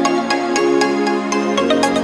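Background music: an electronic track with held, changing chords over a steady beat of sharp high ticks.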